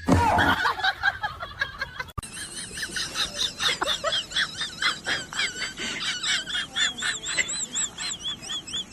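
Birds calling, many short high-pitched calls repeating rapidly and overlapping, after a sudden loud sound at the start and a cut about two seconds in.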